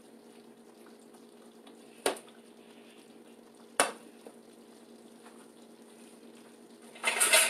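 Oil and butter sizzling faintly in a skillet heating on the stove. Two sharp knocks come a couple of seconds apart, and near the end there is a louder clatter of metal kitchen utensils.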